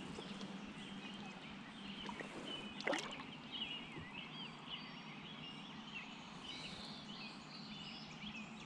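Birds chirping and warbling continuously over a faint steady hum, with one sharp tap about three seconds in.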